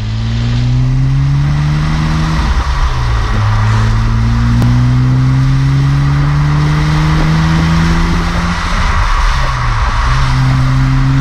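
BMW 135i's N54 twin-turbo straight-six heard close at the twin tailpipes of its Milltek rear silencer, accelerating through the gears: the exhaust note climbs, drops at an upshift a little after two seconds in, climbs again for about five seconds, drops at a second upshift near nine seconds, then climbs once more. A steady rush of road and wind noise runs under the exhaust note.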